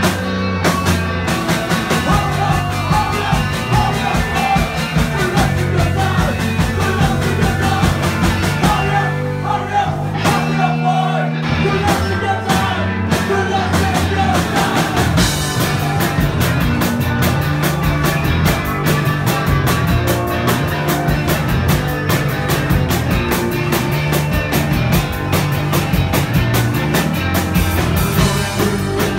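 Live rock band playing loud and fast: distorted electric guitar, bass and drum kit, with a singer's voice over them. The cymbals and bass drop away for a moment about ten seconds in, then the full band comes back in.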